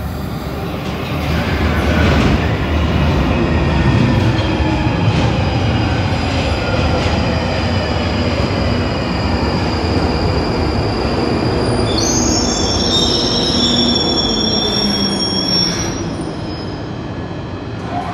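London Underground Northern line 1995-stock tube train pulling into the platform. It rumbles in loudly from about two seconds in, with the motors' whine falling in pitch as it brakes. High wheel and brake squeals follow from about twelve to sixteen seconds in as it draws to a stop.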